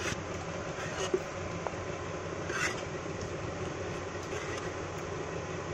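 A spoon scraping cooked aloo keema out of a pan onto a serving plate, in a few short scrapes over a steady background hum.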